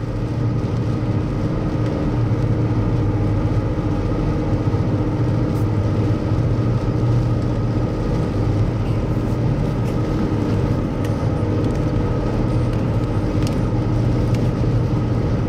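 Strong dust-storm winds gusting to around 65 mph, a steady loud rumble with a constant low hum, heard from a vehicle.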